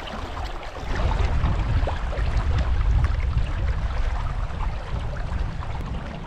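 Fast river water rushing through a rip, a steady noise, with gusts of wind buffeting the microphone as a low rumble that is strongest in the first half.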